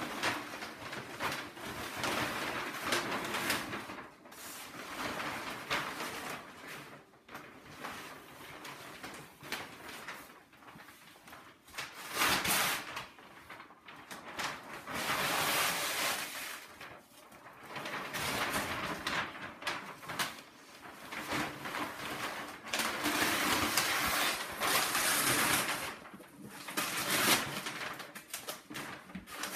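Sheets of brown kraft wrapping paper rustling and crumpling as they are pulled off large wrapped paintings, in irregular bursts a few seconds long.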